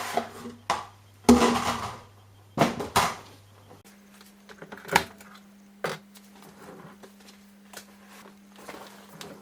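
Laundry being handled and loaded into a front-loading washing machine drum: fabric rustling, with a few sharp knocks and clicks against the machine.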